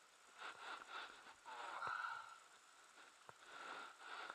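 Faint rustling and handling noises with soft breaths and a couple of light clicks.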